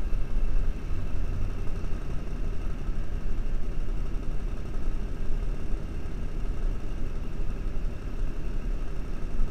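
Pickup truck engine idling, heard from inside the cab as a steady low rumble with a faint steady hum above it.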